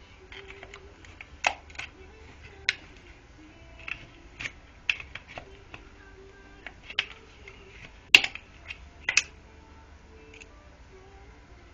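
Irregular clicks and knocks of small parts and tools being handled, the loudest a pair about eight seconds in, over faint background music.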